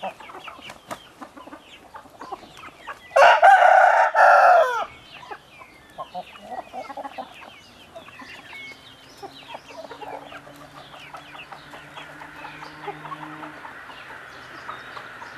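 A young Hinthoroz cockerel crows once, loudly, about three seconds in, with a brief break just before the end of the crow. Softer clucks and chirps from the young fowl go on around it, and a faint low drone is heard in the second half.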